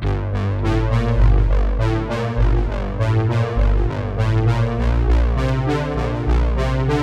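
Electronic music with synthesizer and electric piano chords over a steady beat and heavy bass.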